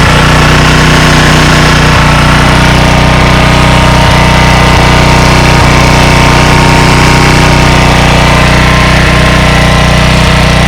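A 1985 Honda HR214 lawnmower's single-cylinder four-stroke engine running loud and steady, shortly after a cold start on the first pull.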